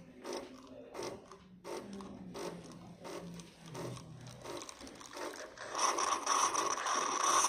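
Nespresso milk-system cleaning cycle: the machine's pump clicks rhythmically, about two or three times a second, then about six seconds in a loud, steady hissing rush starts as the milk circuit is flushed.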